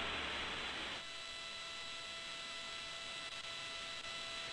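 Low-level steady hiss from the broadcast audio line, with a faint hum of several steady high tones that sets in about a second in.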